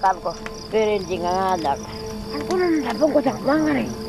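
An elderly Aboriginal woman speaking in short phrases whose pitch rises and falls, with crickets chirping steadily behind her.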